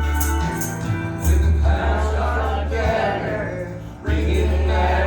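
A song with a singer's voice over long held bass notes.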